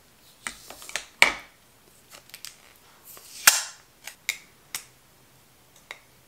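Plastic powder compact and makeup tools clicking and tapping while face powder is applied: a scatter of sharp clicks, the loudest about a second in and again about three and a half seconds in.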